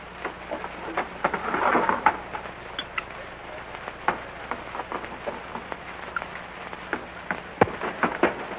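Saloon background noise on an old film soundtrack: scattered sharp clicks and knocks over a steady hiss, with a muffled murmur of voices in the first two seconds.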